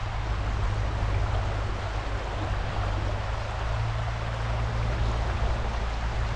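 Steady rush of flowing water from Minnehaha Falls and its creek, over a low rumble.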